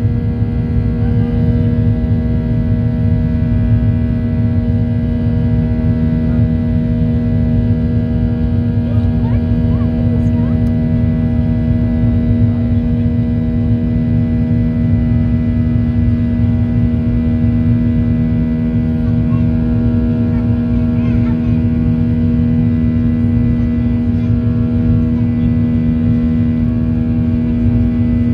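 Airliner cabin noise during the climb after takeoff: the engines' steady drone, a hum of several held tones over a low rumble of airflow.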